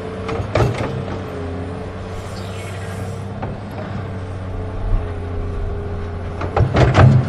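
Huina 1580 RC excavator's electric motors whining steadily as the arm and bucket move, with a steady low hum. Crunching, scraping clicks of the bucket digging into rocky soil come about half a second in and loudest near the end.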